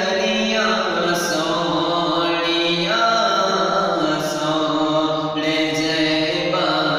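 A young man's voice singing a naat, a devotional Urdu song in praise of the Prophet, in long held notes that shift pitch every second or two.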